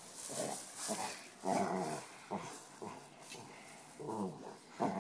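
A dog grumbling and growling in several short bouts while it rolls and rubs its back and head on gravel, with gravel scraping under it. It is rubbing at itchy ears.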